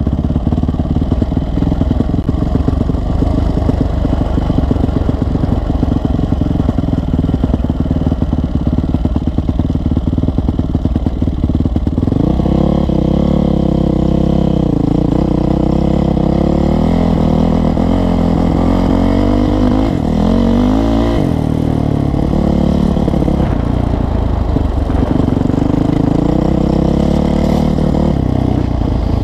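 Dirt bike engine heard from the rider's own helmet camera, running rough at low speed, then revving up and down as the bike rides on. About halfway through the pitch rises and falls repeatedly, with a quick climb and sharp drop a little after twenty seconds.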